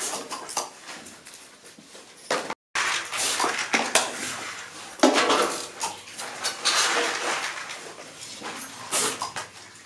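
Hands working shiny gold foil cracker wrappers and paper confetti in a bowl: irregular crinkling, rustling and light clatter. The sound breaks off for a moment about two and a half seconds in, then carries on.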